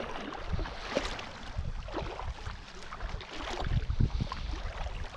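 Water sloshing and splashing around legs wading through shallow sea water, in uneven splashes, with wind buffeting the microphone.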